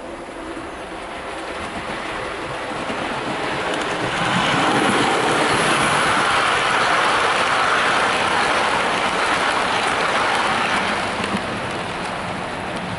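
Model railway train, a small tank locomotive hauling coaches, running past on the layout's track. It grows louder until about four seconds in, stays loud while the coaches go by, and eases off near the end as the last coach moves away.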